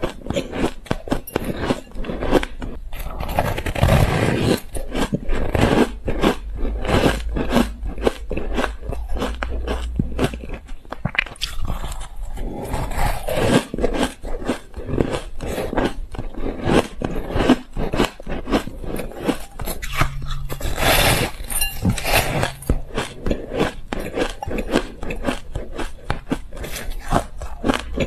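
Crushed, crispy ice being bitten and chewed close to the microphone: a dense run of rapid, crisp crunches that carries on without a break.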